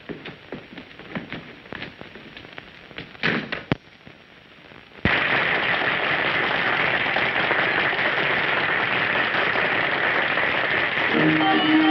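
Scattered soft knocks and shuffles, then a sudden loud, even crackle of applause from a crowd after an abrupt cut. A dance orchestra with brass strikes up near the end.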